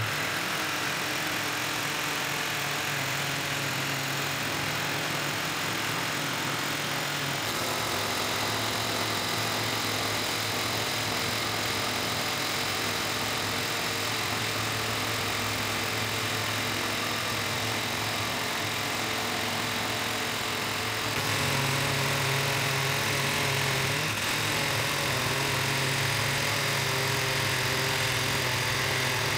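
Metabo electric drill running steadily at speed, spinning a wooden rod that a fixed blade in a clamped jig is shaving round. It gets louder about 21 seconds in.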